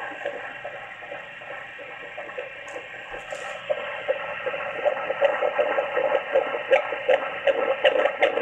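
Fetal heartbeat through a handheld fetal Doppler's speaker: a static-like hiss, out of which fast, rhythmic whooshing beats come through from about four seconds in, growing louder.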